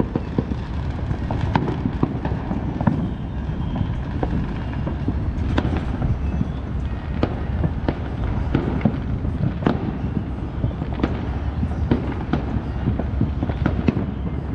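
Neighbourhood fireworks and firecrackers going off all around: sharp cracks and bangs at irregular intervals, about one a second, over a constant low rumble.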